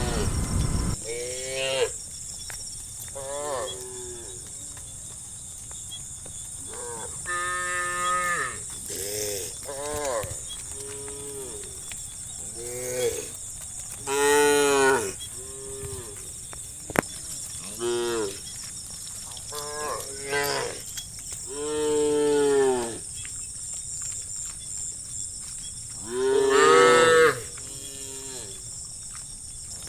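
A herd of cattle mooing, about fifteen calls of mixed length from several animals, some brief and some drawn out over a second, with the loudest moos about halfway through and near the end. A steady high hiss runs underneath.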